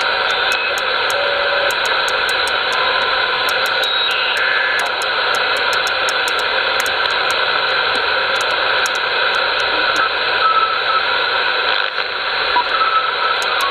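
Receiver static hiss from an HR2510 transceiver working as the tuner for a 6-metre transverter, as its dial is turned up through the 50 MHz beacon segment. Brief steady whistles at different pitches come and go as it tunes across carriers, over a run of quick light clicks from the stepping dial. Near the end a short steady tone of about 1 kHz is heard.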